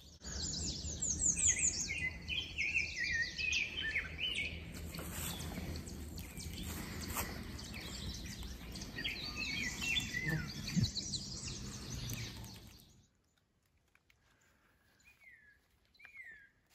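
Several songbirds singing, with quick runs of high chirps and trills over a low, steady background rumble. About thirteen seconds in the sound cuts to near quiet, with two faint, short bird calls near the end.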